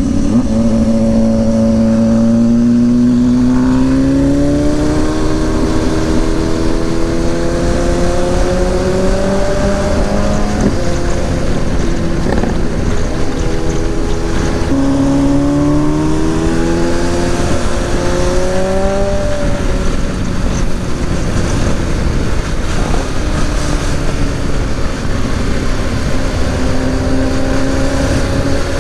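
BMW GS motorcycle engine under way, its pitch climbing steadily for about ten seconds, dropping, climbing again, then settling to a lower steady note in the second half, over a steady rush of wind and road noise.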